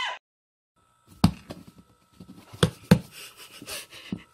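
Cat shifting inside a cardboard box: two dull knocks on the cardboard about a second in, two more near the middle, with soft rustling between them.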